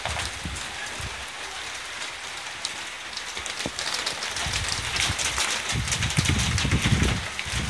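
Heavy stormy rain pouring, with many drops pattering and ticking on hard surfaces. From about halfway through, wind gusts rumble on the microphone and the sound grows louder.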